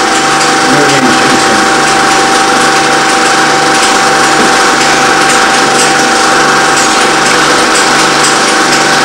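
Film projector running steadily: a constant mechanical whir with a steady high hum and a regular low pulsing.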